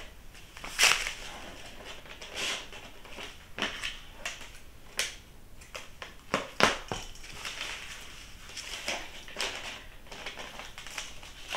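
Packing paper crinkling and rustling as an item is wrapped for shipping, in short, irregular crackles; the sharpest come about a second in and around seven seconds in.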